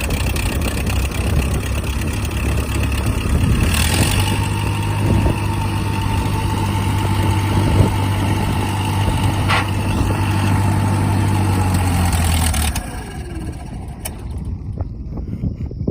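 A vehicle engine running steadily, with a faint high whine over it. About 13 seconds in the engine drops back and runs quieter.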